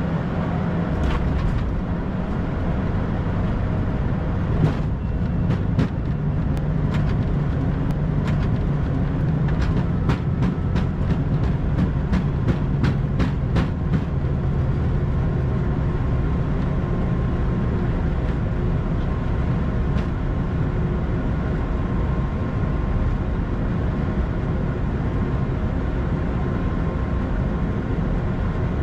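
Steady flight-deck noise of an Airbus A220-100 in flight: a constant rush of airflow and engine hum, with a run of light clicks between about six and fourteen seconds in.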